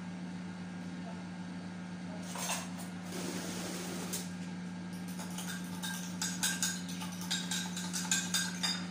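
Fork beating eggs in a small glass bowl, clinking quickly and irregularly against the glass in the second half, over a steady low hum.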